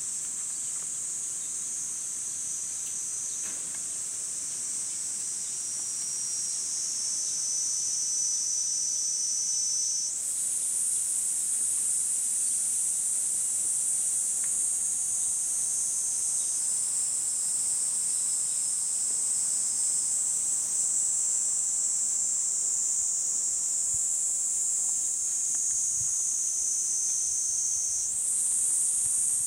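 Steady high-pitched chorus of summer cicadas, several shrilling at once. The chorus shifts in pitch and grows louder about ten seconds in, and again near the end.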